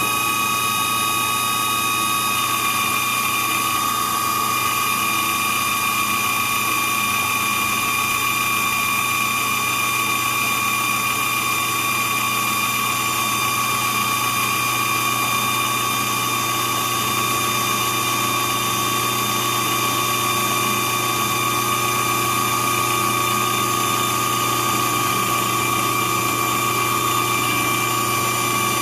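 A drill press and a grinder running together while the drill press chuck's jaws are ground true to take out runout: a steady motor hum with a high whine that shifts slightly in pitch about two seconds in, then holds.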